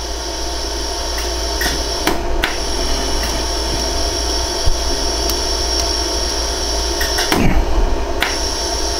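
LaserStar iWeld jewelry laser welder running during a weld: a steady machine hum with a high whine, broken by a few sharp, irregular ticks as laser pulses are fired to fuse 14K gold filler wire into the ring's sizing seam. The whine drops out briefly about seven seconds in.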